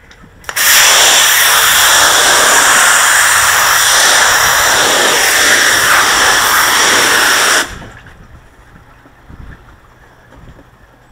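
Pressure washer's high-pressure water jet spraying onto porcelain patio slabs: a loud steady hiss that starts sharply about half a second in and cuts off abruptly after about seven seconds.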